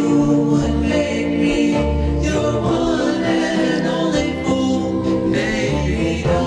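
Doo-wop record: a vocal group singing sustained close harmonies over bass accompaniment.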